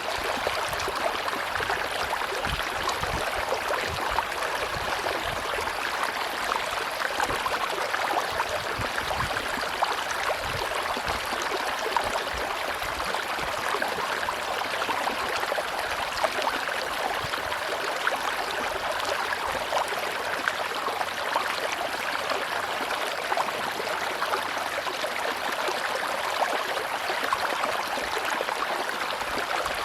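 A river running steadily over rocks, a continuous rush of water with fine splashing and gurgling that stays even throughout.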